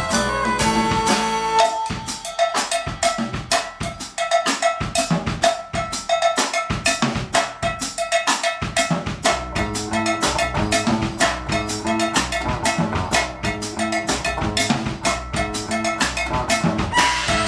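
Drum kit solo in an Afro-Cuban beat: fast strokes on drums and rims with bass drum under them. About ten seconds in, a pitched bass line joins beneath the drums, and near the end the rest of the band comes back in.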